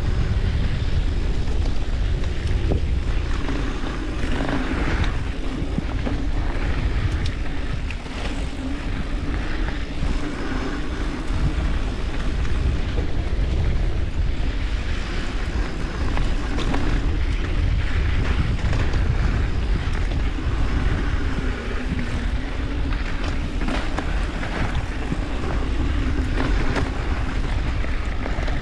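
Wind rushing over the microphone and mountain bike tyres rolling on a dirt trail while riding, with scattered light knocks and rattles from the bike.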